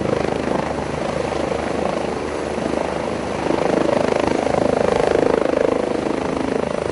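Life Flight medical helicopter running, its rotor beating in a steady rapid pulse; it grows louder about halfway through and eases slightly near the end.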